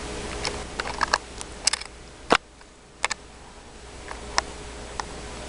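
Irregular clicks and knocks of a Pixie-bob cat's head bumping and rubbing against a handheld camera, about nine in all, the loudest a little over two seconds in, over a steady hum.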